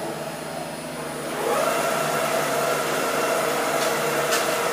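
Spindle of a homemade Bassotta CNC milling machine running with a steady whine. About a second and a half in the pitch rises and the sound gets louder, then holds steady. Two short sharp ticks come near the end.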